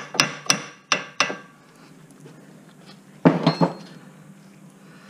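Hammer blows on metal at a 2007 Nissan Murano's lower ball joint, about three a second, to free the ball joint stud; they stop after about a second. About three seconds in comes a short, louder clatter of metal.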